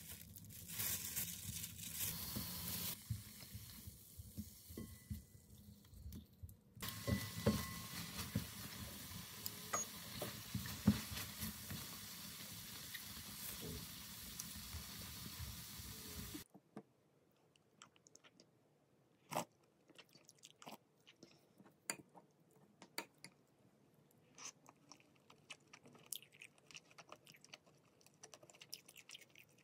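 Pieces of beef sizzling as they fry in a frying pan, with clinks as the pieces are turned. After about 16 seconds this stops suddenly and gives way to quiet eating: soft chewing and light clicks of a wooden spoon against the dishes.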